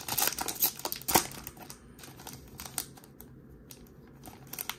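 Foil wrapper of a Topps baseball card pack crinkling as it is torn open and pulled apart, busiest in the first second or two with a sharp crackle about a second in, then a few faint rustles.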